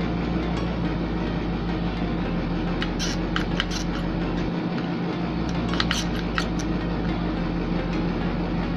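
Steady background hum under faint background music, with a few small clicks and taps from handling a hot glue gun against driftwood, in two short clusters about three and six seconds in.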